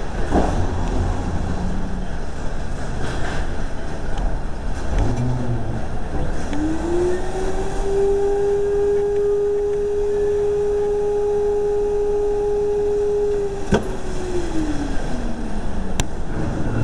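A vending machine's vacuum (hoover) motor spinning up with a rising whine, running steadily for about seven seconds, then winding down after a sharp click, over a steady background rumble.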